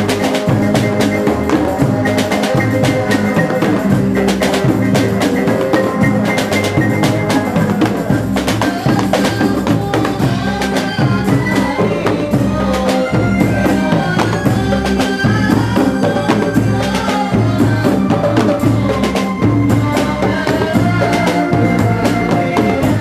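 Live band music: a drum kit keeps a steady beat with bass drum and cymbals, backed by a frame drum and electric bass, while young men sing into microphones.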